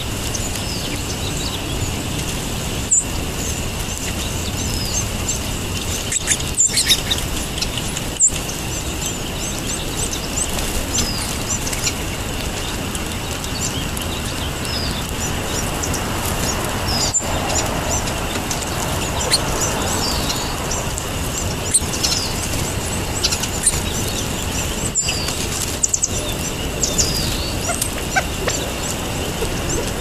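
Short, high chirps and call notes from a flock of feeding sparrows, scattered throughout, over a steady background rumble and a faint steady high tone.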